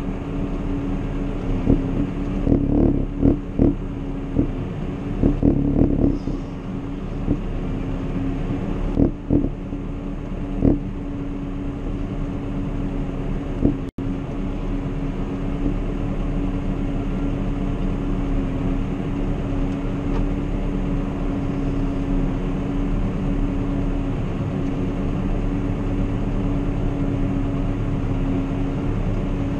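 Valtra tractor's diesel engine running steadily, heard from inside the cab, with irregular knocks and rattles through roughly the first ten seconds. The sound drops out for an instant about 14 seconds in.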